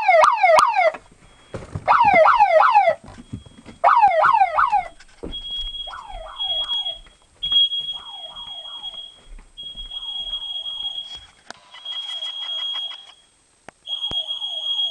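Alarm siren sounding in one-second bursts of rapid falling whoops. About five seconds in, a steady high-pitched smoke-alarm tone takes over, pulsing on and off above fainter whoops: the smoke detector is in alarm after a test with canned smoke.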